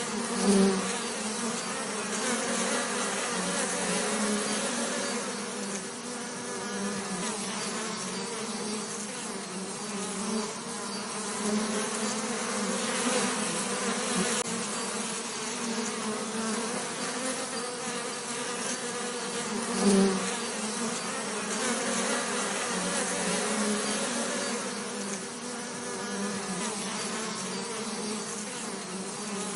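Bees buzzing steadily, with two brief louder swells, one about half a second in and another about twenty seconds in.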